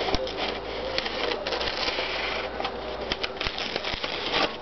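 A sheet of paper rustling and crackling in irregular bursts as it is drawn against the thin, sharpened edge of a garden hoe and sliced.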